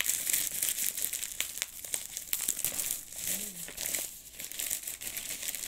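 Plastic courier mailer bag being torn open and crumpled by hand: continuous crinkling with many sharp crackles.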